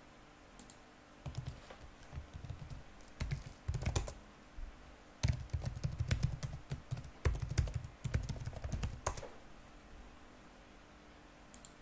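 Typing on a computer keyboard: quick runs of keystrokes in bursts that stop about nine seconds in, with a couple of lone clicks near the end.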